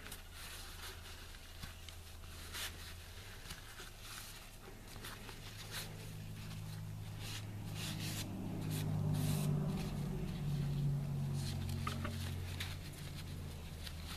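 Paper towel rustling and crinkling as it is handled and wiped over a vape tank, in short irregular scrapes. Underneath runs a low steady hum that swells in the middle and eases off near the end.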